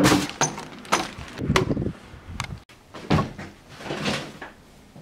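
A string of short knocks, bumps and rustling, like cupboard doors and handling noise, one every half second or so, with an abrupt cut partway through.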